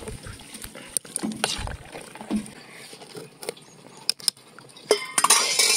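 A metal ladle stirs chicken curry in a metal cooking pot, with scattered sharp clinks against the pot and sloshing of the liquid. A louder, denser clatter comes near the end.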